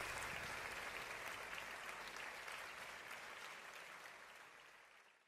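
Concert audience applauding, the clapping fading away steadily until it is gone near the end.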